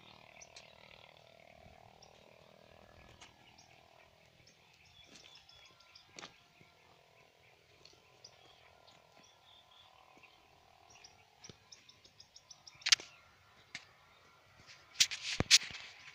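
Faint outdoor background with scattered bird chirps. Late on come a few sharp clicks and rustles, the loudest of them near the end.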